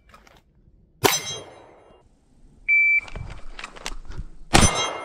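Pistol shots ringing steel targets during a shot-timer drill: a shot with a long metallic ring about a second in, the timer's short high start beep at about 2.7 s, a few light clicks, then another shot ringing steel near the end.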